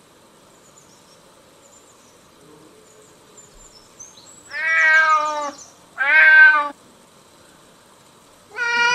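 Domestic cat meowing three times: two meows about a second long, close together midway, then a shorter, steadier one near the end.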